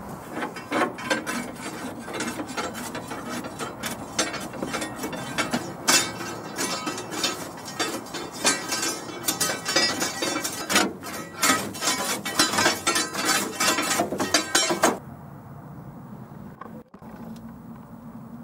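Ash being cleared from a steam traction engine's firebox: rapid, loud metallic scraping and clinking of a tool on the grate's firebars. It stops abruptly near the end.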